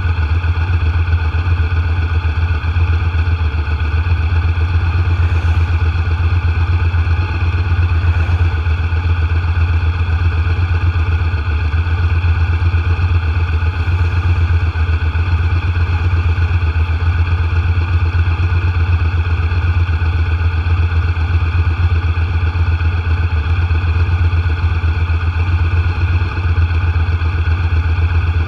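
Vehicle engine running at a steady cruising speed, a strong low hum that does not change, mixed with road noise from the moving vehicle.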